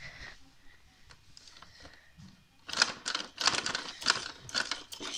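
Hard plastic clattering and clicking from a Fisher-Price toy basketball hoop being handled: a quick run of rattling strokes starting about two and a half seconds in.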